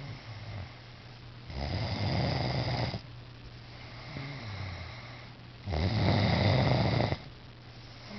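A man snoring loudly: two long snores about four seconds apart, each lasting about a second and a half. Between them come softer breaths that fall in pitch.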